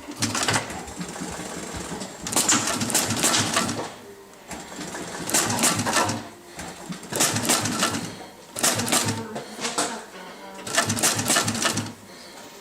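Industrial upholstery sewing machine stitching leather in short runs of about a second each, six runs with brief pauses between them.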